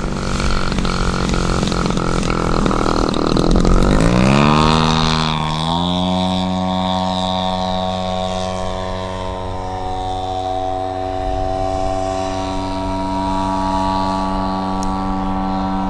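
Twin-cylinder 100cc two-stroke gasoline engine of a large RC Super Decathlon turning a big propeller in flight. It is loudest about four seconds in as it revs up, rising in pitch over a couple of seconds, then holds a steady higher note as the plane climbs away.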